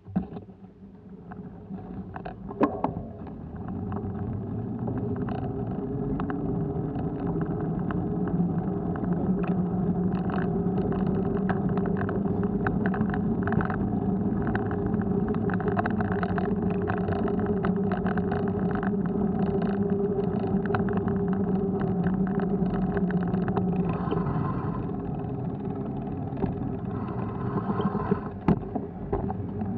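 Steady rolling rumble from a moving action camera mount over block paving, with many small knocks and rattles. It builds up over the first few seconds as the camera gets under way.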